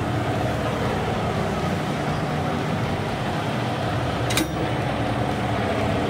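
Heavy diesel truck engine idling steadily, with a short sharp click about four seconds in.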